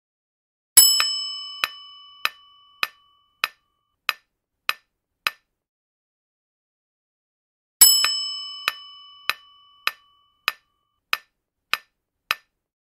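Quiz-game sound effects: a bright bell ding that rings out for about two seconds, followed by steady timer ticks about every 0.6 s that stop after about five seconds. A second ding comes near the two-thirds mark and the ticking starts again.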